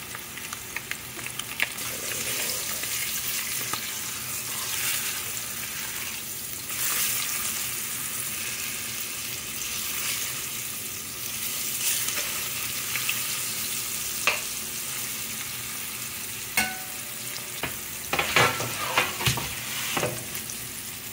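Breaded red snapper fillets frying in hot oil in a stainless steel skillet: a steady sizzle. A metal spatula knocks and scrapes against the pan a few times as the fillets are turned, most of it in the last several seconds.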